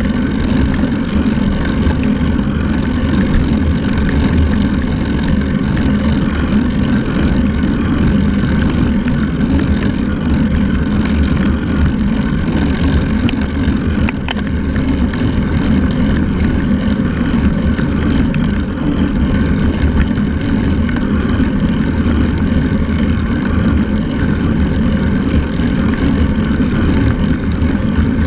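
Wind buffeting the microphone of a handlebar-mounted camera on a moving road bike: a loud, steady rumble that barely changes.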